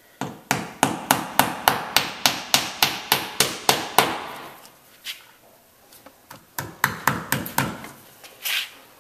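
Ball-peen hammer driving copper nails into the edge of a wooden boat transom: a quick run of about fifteen sharp taps, a pause, then a shorter, quicker run of strikes.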